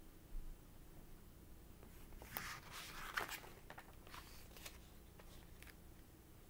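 Pages of a picture book being leafed through: paper rustling, strongest about two to three seconds in, followed by a few light clicks as the book is handled.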